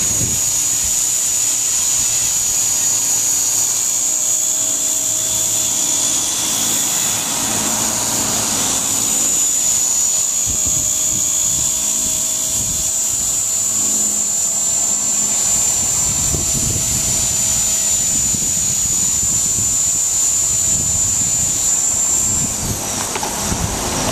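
Electric Blade 130X RC helicopter in flight, a steady high-pitched whine of its motor and rotors, with its tail rotor running on newly fitted ceramic bearings. Wind rumbles on the microphone in the second half. The whine winds down near the end as it lands.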